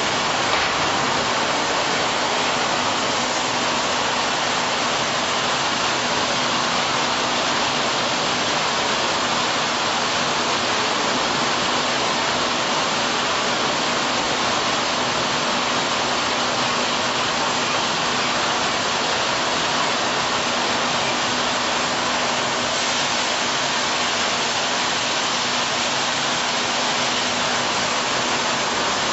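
Chicken processing line machinery running steadily: a constant rush of water-like noise with a faint steady hum underneath.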